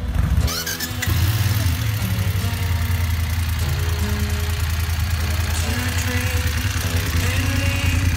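BMW F 850 GS motorcycle's parallel-twin engine idling steadily, a low even rumble that settles in about a second in.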